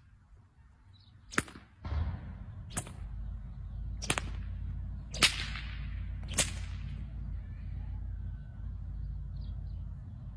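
A whip cracking five times, single sharp cracks a little over a second apart. A steady low rumble sets in about two seconds in.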